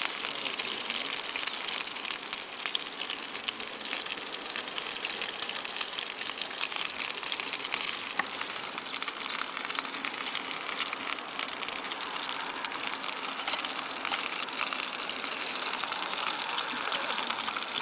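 Sausages frying in a pan on a small gas canister stove: a steady sizzle with fine crackling over the hiss of the burner.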